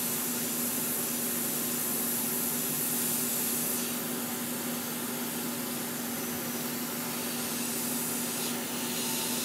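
Gaahleri GHAD-39 dual-action airbrush hissing steadily as air is let through it, with a steady low hum underneath; the hiss eases slightly about four seconds in.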